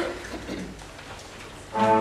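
A quiet hall, then about 1.7 seconds in the instrumental introduction to a children's song begins with a loud, sustained chord.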